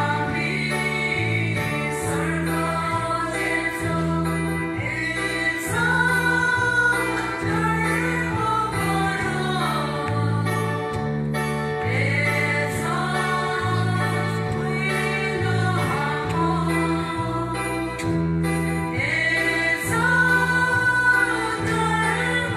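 A women's choir singing a hymn together from hymnbooks, over a steady, repeating low accompaniment.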